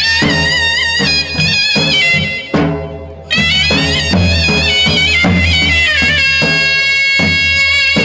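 Charani raas folk dance music: a high, reedy wind instrument plays a wavering melody over steady drum beats, then holds one long note through the second half.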